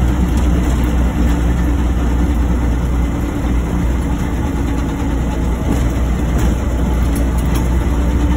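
Narrow-gauge diesel locomotive's engine running with a steady, deep drone, heard from inside the cab.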